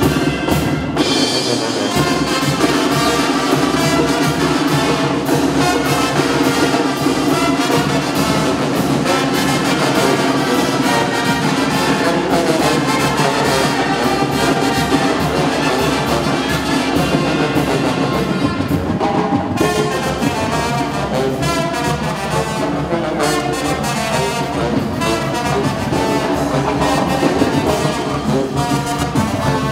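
Brass band music playing, led by trumpets and trombones.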